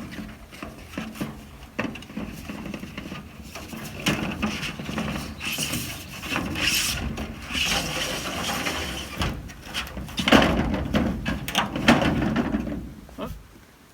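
Knocks, clicks and scraping as clear roof panels are handled and fitted onto a wooden outhouse, louder in stretches and dying away near the end.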